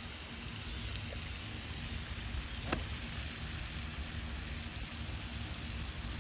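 Light rain falling: a steady hiss, with a low wind rumble on the microphone. A single sharp click sounds about two and a half seconds in.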